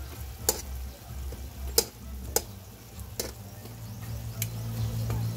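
Metal spatula clinking against a stainless steel wok while stirring braising pork hocks, about five separate clinks a second or so apart, over a low steady hum.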